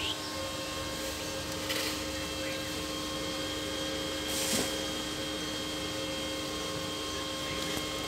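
Portable inverter arc welder switched on and idling, giving a steady electrical hum. Two brief clicks or rustles come as the welding-cable connectors are pushed and twisted into its sockets.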